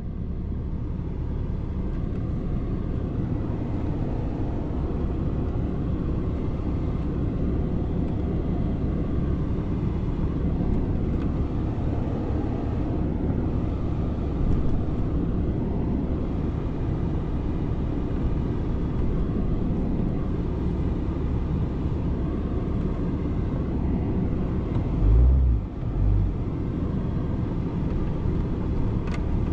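Truck driving down the road: steady low engine and road rumble, with two short low thumps near the end.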